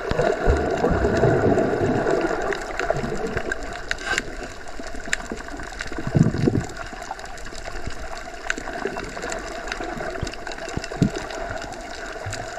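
Waterfall: water cascading over rock ledges into a pool, a steady rushing noise, a little louder in the first couple of seconds.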